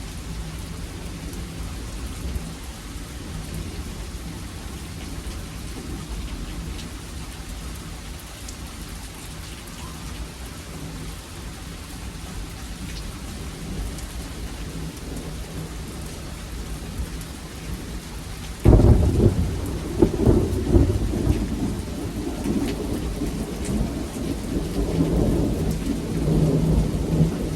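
Steady rain during a thunderstorm. About two-thirds of the way in, thunder breaks with a sudden loud crack and rolls on as a long, crackling rumble.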